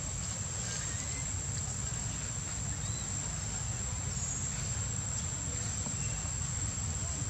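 Steady, unbroken high-pitched insect drone over a steady low rumble, with a few faint ticks.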